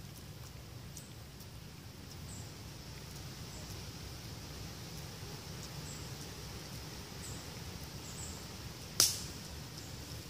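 Outdoor ambience with a steady low rumble and faint, short high-pitched chirps now and then. A single sharp click about nine seconds in is the loudest sound.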